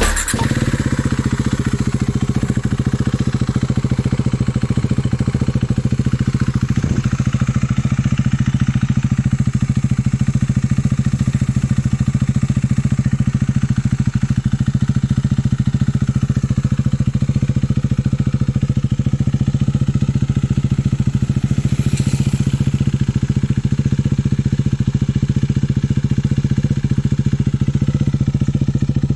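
Husqvarna Svartpilen 401's single-cylinder engine idling steadily through an aftermarket slip-on mid pipe and muffler, with the catalytic converter kept in place.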